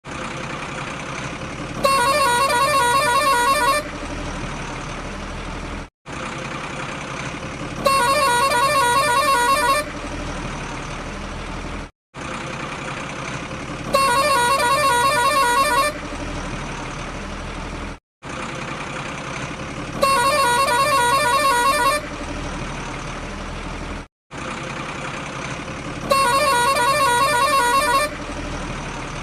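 A truck horn honking for about two seconds over a steady engine rumble. The pattern repeats identically every six seconds, five times, with a brief dropout between each repeat, like a looped truck sound effect.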